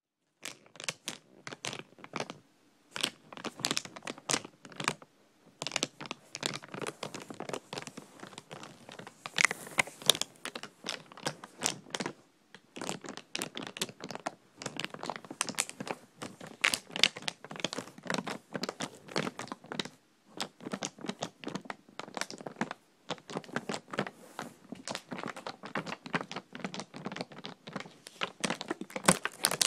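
Thin plastic water bottles being crinkled and squeezed by hand: dense, irregular crackling and popping in bursts, with brief pauses between squeezes.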